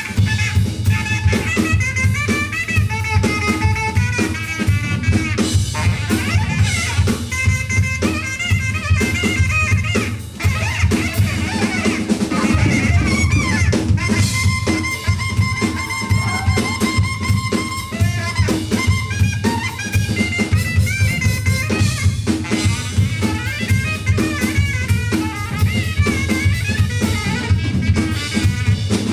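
Live jazz-funk band playing: a busy drum kit with snare, rimshots and bass drum over a strong bass line, with melodic lines that bend and waver above.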